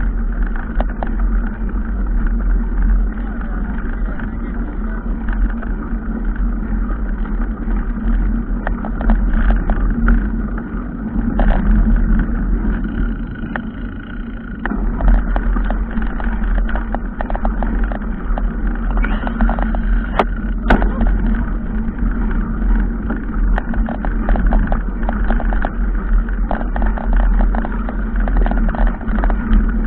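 Motor vehicle driving over a rough dirt trail: the engine runs steadily under a constant low rumble, with frequent rattles and knocks from the bumpy ground and one sharper knock about two-thirds of the way through.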